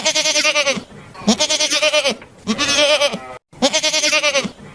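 A goat bleating four times in a row, each bleat lasting well under a second, with a quavering, wavering pitch.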